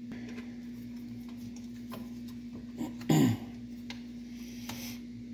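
Light clicks and taps of hands handling wiring and the plastic mainboard cover of an Ender 3 Pro 3D printer, over a steady hum. A brief louder sound falling in pitch comes about three seconds in.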